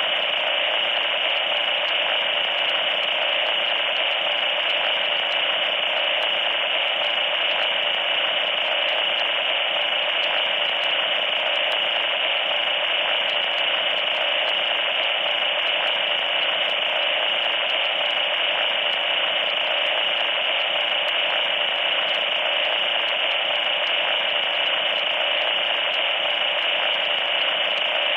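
Loud, steady static noise: an even hiss sitting in the middle range, with a thin high tone running through it and no change at all.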